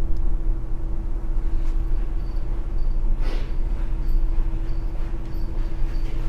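Steady low rumble with a constant hum from a large car ferry under way, heard from inside the ship: its engines and machinery running. A brief rustle about three seconds in.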